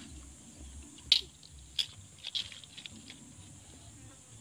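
A blade scraping along a fish's skin in a few short, sharp strokes, the loudest about a second in.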